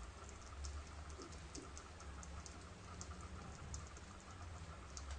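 African pygmy hedgehog eating wet canned cat food from a plate: faint, irregular little clicks and smacks of chewing, several a second.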